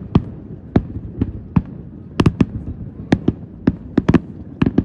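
Aerial fireworks shells bursting in quick, irregular succession: sharp bangs about two to three a second, some landing in close pairs.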